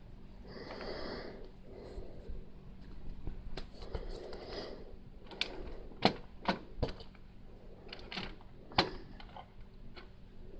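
Plastic Lego bricks being handled and pressed together: light rustling and taps, then a few sharp clicks in the second half.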